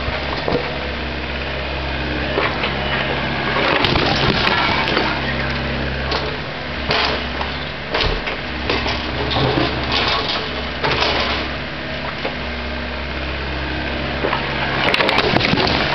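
Volvo ECR88 compact excavator's diesel engine running steadily under load as its bucket scrapes and knocks against broken concrete rubble, with scattered clunks and scraping, a cluster of them near the end.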